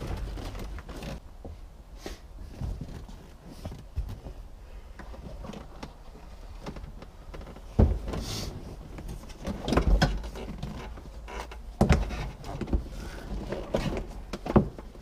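Wiring harness and its rubber floor insulation being pulled free and dragged out of a car's floor: rustling and scraping with scattered knocks, the loudest thuds about eight, ten and twelve seconds in.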